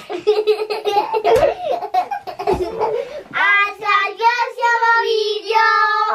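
Young children's voices and laughter, then, about three seconds in, three young girls singing together in a few drawn-out notes.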